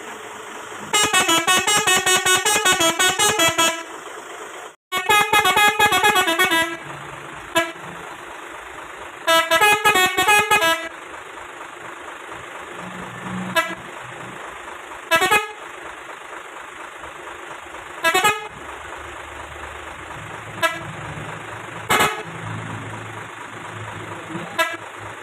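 Truck-mounted 17-tone telolet horn (Basuri V3) playing three quick melodies of rapidly changing notes, each a couple of seconds long. These are followed by about seven short single toots spaced a few seconds apart.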